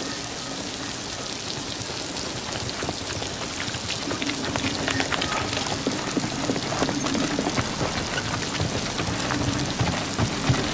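Steady rain pattering, a dense haze of small drops and ticks that grows a little louder in the second half, with a faint low hum coming and going beneath it.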